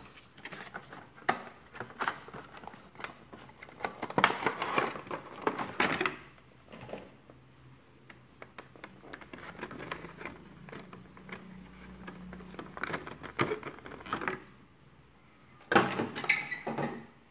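Cardboard box and clear plastic packaging being handled as a vinyl Funko Pop figure is taken out: rustling, crinkling and small clicks and knocks, with the busiest bursts about four to six seconds in and again near the end.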